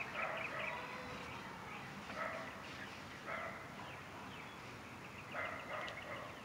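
Dogs barking, faint, in four short bursts a second or two apart.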